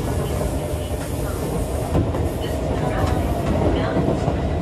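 Running noise inside a Keisei 3400 series electric train car under way: a steady low rumble of the wheels on the rails, with a faint whine from the running gear rising slightly in pitch and a few light clicks.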